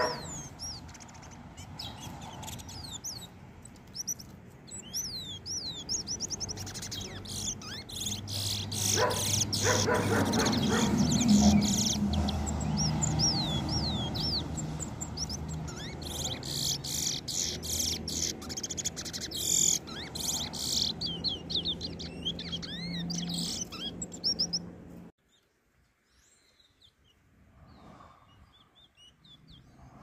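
Two caged twa-twa (seed finches) singing against each other: quick repeated chirps and trills, thickest in the middle stretch, over a low steady hum. The sound cuts off suddenly near the end, leaving only faint noises.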